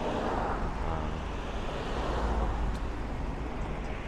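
Steady city road traffic noise with a low rumble underneath.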